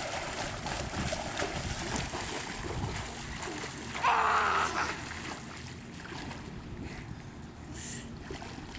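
Swimmers splashing and thrashing in a swimming pool, water sloshing and splashing, with a brief louder burst about four seconds in.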